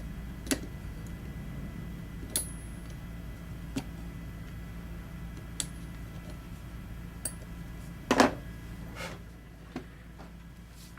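Scattered clicks and knocks of metal parts and tools being handled during a turbocharger overhaul, some with a brief high metallic ring, the loudest cluster about eight seconds in, over a steady low hum.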